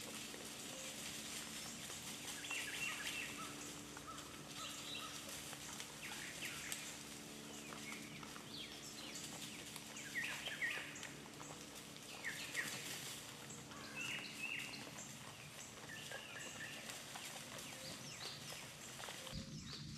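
Herd of wild hogs feeding and rooting through dry leaf litter, with scattered small clicks and crunches, while birds chirp repeatedly in the woods.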